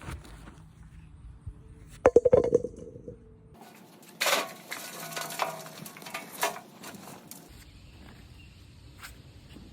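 Potatoes clattering against each other and a hard container in a quick run of knocks with a ringing tone about two seconds in. This is followed by about three seconds of rustling and scraping as soil and potatoes are handled.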